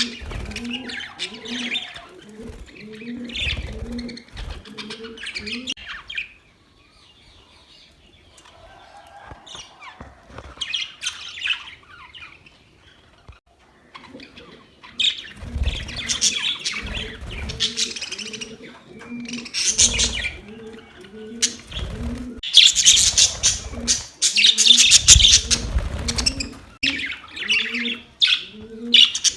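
Budgerigars chirping and warbling in busy bursts, thinning to sparse faint chirps for several seconds in the middle, then loudest and densest in the second half. Underneath runs a low note repeated at an even pace.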